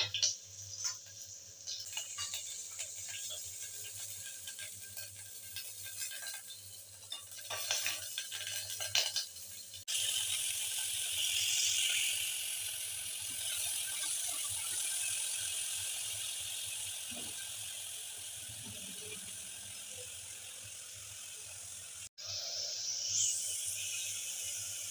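Onion and green chilies frying in mustard oil in an open aluminium pressure cooker, crackling and sputtering with a few clicks of stirring. About ten seconds in it changes to a steady sizzling hiss as rice and lentils are sautéed in the oil and stirred with a metal spoon.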